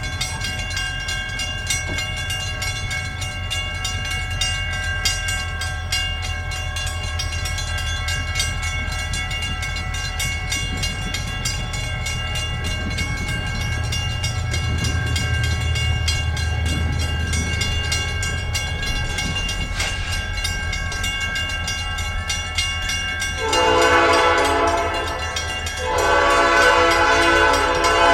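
Diesel freight train running, with a steady low rumble and a steady high-pitched whine. Near the end the locomotive sounds its air horn in two long blasts, the second running on.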